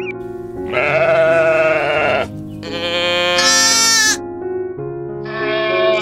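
Sheep bleating twice, each a long wavering bleat of about a second and a half, over background piano music. Near the end another drawn-out animal call begins.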